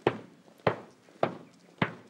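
A marching band's drum beating a steady march time: four even, sharp beats, a little under two a second.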